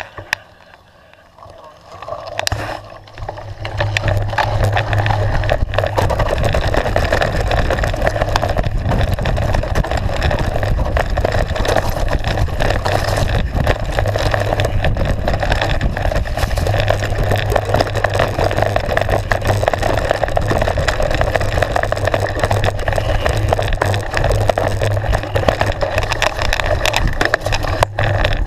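Wind buffeting an action camera's microphone together with knobbly mountain-bike tyres rumbling over gravel and dirt trail during a fast descent. It is quieter at first and becomes a loud, steady rush about three seconds in as the bike picks up speed.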